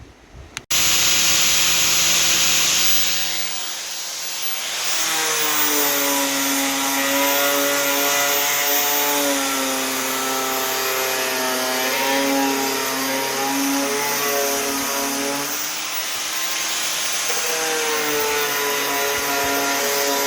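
Electric grinder working the rusty sheet metal of a car door: a loud hiss of abrasive on steel with a motor whine whose pitch dips and rises as the tool is loaded.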